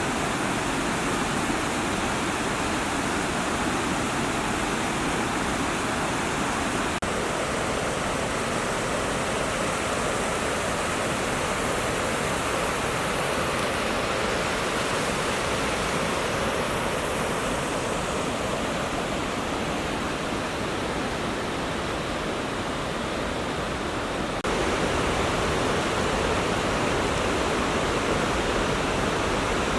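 Steady rush of falling water from Hagoromo Falls, a tall waterfall, its tone shifting abruptly twice, about a third of the way in and again past three quarters.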